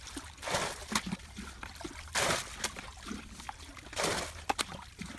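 Muddy water splashing as a plastic bucket scoops it up and flings it out, three times about two seconds apart, with small splashes and trickles between: bailing a shallow ditch pool dry to get at the fish.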